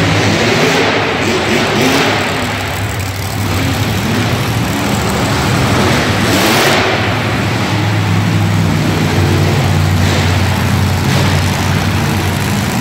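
Several monster truck engines running as the trucks drive around the arena floor: a steady low engine note, with the revs rising and falling several times.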